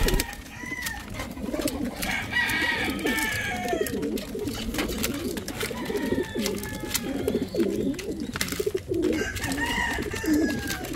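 Racing pigeons cooing continuously while feeding, with many sharp clicks as their beaks peck mixed grain from a feeder trough.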